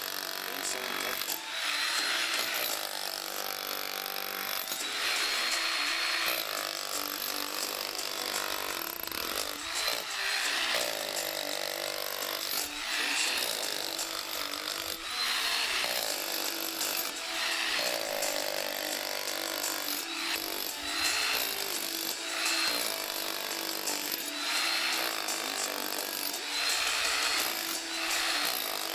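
Electric demolition hammer (GEKO 1050 W, 16.5 J) with a pointed chisel chiselling into reinforced concrete. It runs steadily, with louder, grittier spells of a second or so every couple of seconds as the point bites into the concrete.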